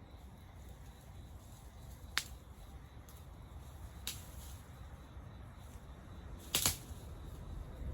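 Wood campfire burning, with a few sharp pops and cracks over a low steady rumble; the loudest crack comes about two-thirds of the way through.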